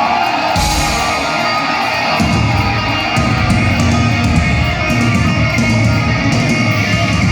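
Live heavy metal band playing a riff: electric guitar with bass and drums, the low end coming in about half a second in and filling out about two seconds in.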